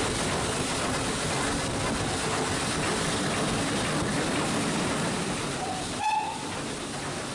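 Steam locomotive running with a steady hiss, giving one short whistle toot about six seconds in.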